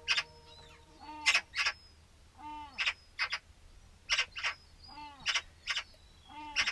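Crows and gulls calling. A short, arching call repeats about every second and a half, each one followed by one or two harsh, rasping notes.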